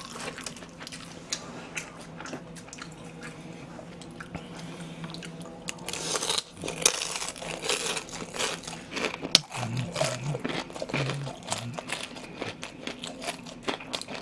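Close-miked chewing of battered fried pork tangsuyuk in soy sauce. Soft wet mouth sounds give way to crunching, with many sharp crackles, from about six seconds in.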